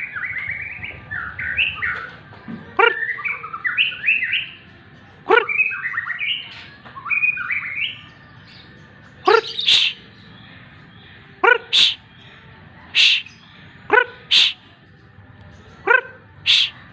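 White-rumped shama (murai batu) singing a quick, chirping warble for the first several seconds, then giving loud, short, harsh calls, single or paired, every second or two.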